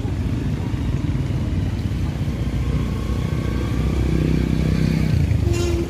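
Road traffic passing close by: a steady low rumble, with one motor vehicle's engine, likely a motorcycle, swelling louder from about three seconds in. A brief tone sounds just before the end.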